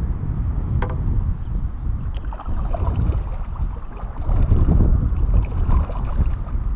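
Strong wind buffeting the microphone as a low, steady rumble, with water sloshing against the kayak and a single sharp click about a second in.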